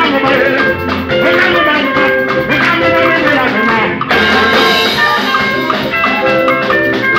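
Live band playing upbeat dance music: picked electric guitar lines over keyboard, a bass line, congas and a drum kit keeping a steady beat.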